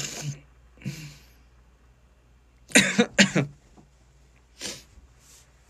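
A man coughing: a quick run of three coughs about three seconds in, with a few fainter short sounds before and after.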